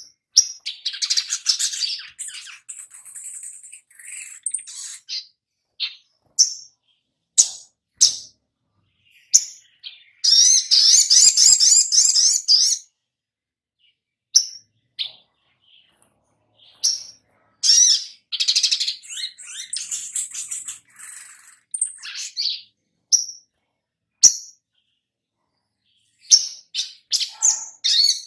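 Caged male olive-backed sunbird singing: sharp, high-pitched chirps and twittering phrases broken by pauses, with a fast, unbroken trill of nearly three seconds about ten seconds in.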